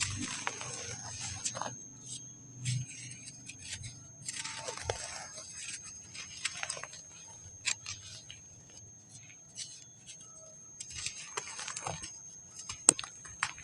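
Dry sand crumbling and breaking apart: irregular gritty crackles and small sharp cracks, with one louder crack near the end.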